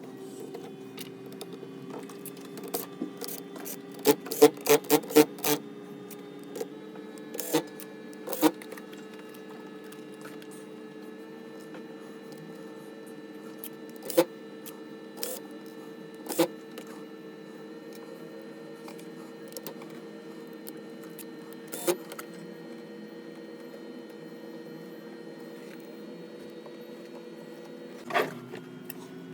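Sharp clicks and taps of plastic and metal laptop parts being handled and pried during disassembly: a quick run of about six clicks about four seconds in, then single clicks every few seconds, over a steady low hum.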